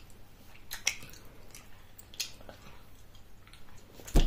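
Close-up chewing of a chewy candy with a licorice-like filling: soft wet mouth clicks and squishes. A single loud thump near the end.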